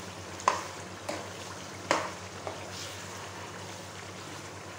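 A metal spoon stirring mutton liver gravy in a non-stick wok while the gravy sizzles steadily. The spoon knocks sharply against the pan about half a second in and again about two seconds in, with a couple of lighter taps between.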